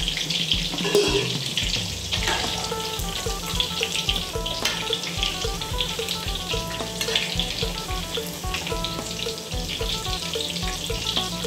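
Thai pork-and-shrimp cakes wrapped around long beans and baby corn deep-frying in a wok of oil: a steady sizzle of bubbling oil.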